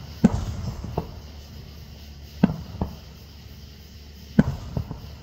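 Aerial fireworks shells bursting: three loud booms about two seconds apart, each followed by one to three weaker bangs.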